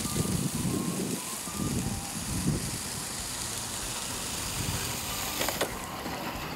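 LCO-1000 walk-behind broadcast spreader pushed across grass, its wheels and gear-driven spinner running with a rattling, ratchet-like clicking. A sharp click comes about five and a half seconds in, as the spreader is brought to a stop.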